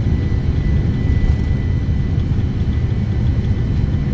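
Steady low rumble of a Boeing 747-400 flight deck in flight after takeoff: airflow and engine noise with a faint steady high tone over it.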